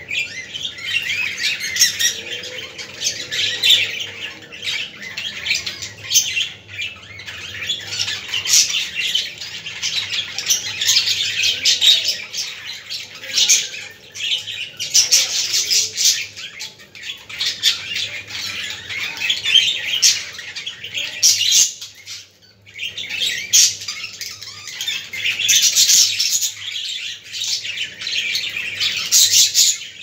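Several caged budgerigars chattering and chirping all together in a dense, continuous stream of short high calls, with a brief lull about three-quarters of the way through.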